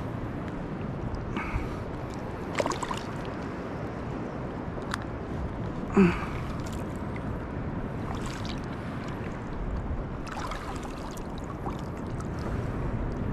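Shallow sea water lapping and sloshing steadily around a wading angler, with faint small clicks and a brief pitched sound about halfway through, the loudest moment.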